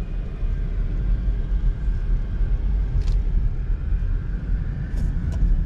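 Steady low rumble of a car driving slowly on town streets, engine and road noise heard from inside the cabin, with two faint short ticks about three and five seconds in.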